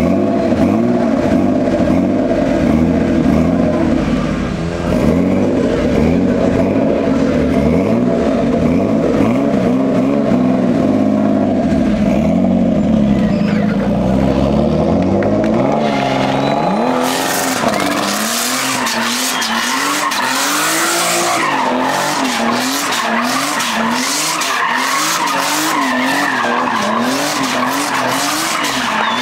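BMW E36 drift car's engine revving hard, its pitch wavering. A little past halfway the tyres break into a continuous squeal as the car spins in smoky drift circles, with the engine note swinging up and down about once a second as the throttle is worked.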